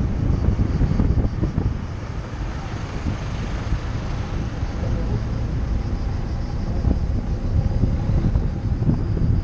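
Car driving at low speed, with a steady low rumble of engine and tyres on the road and some wind on the microphone.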